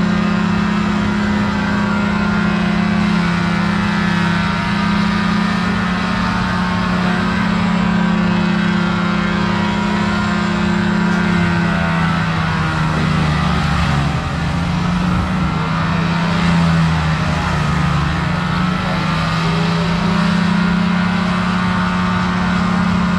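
Heavy diesel logging machinery running at high revs with a strong, steady drone. For a few seconds past the middle the pitch dips and wavers, then settles back to the same steady note.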